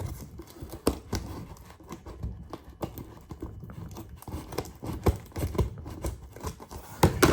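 Packing tape on the sides of a cardboard package being snipped open, with the box handled: a string of irregular snips, taps and rustles, with sharper knocks about a second in and again near the end.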